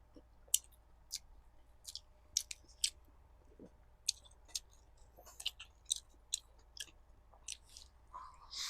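Close-miked chewing of a burger: wet mouth clicks and smacks, a couple each second, with a short breathy rustle near the end.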